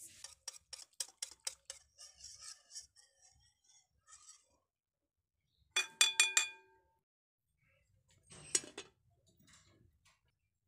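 Wire whisk stirring rice flour in a glass bowl, tapping the glass in a quick even run of ticks at about five a second. About six seconds in comes a cluster of loud ringing metal-on-glass clinks, and about 8.5 s in a glass lid clinks onto the bowl.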